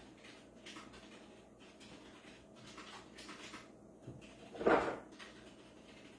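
Faint knocks and rubbing from a clear plastic display case with a mini football helmet being turned over in the hand, with one short louder sound about three-quarters of the way through.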